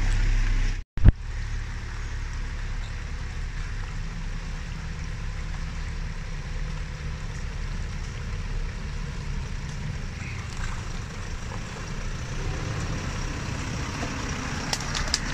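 An off-road 4x4's engine running steadily at low revs, a low rumble, after a brief dropout and a sharp click about a second in.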